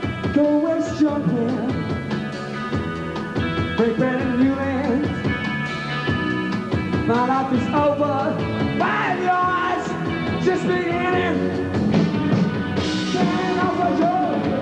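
Rock band playing live: a male lead voice sings over electric guitar, bass and drums.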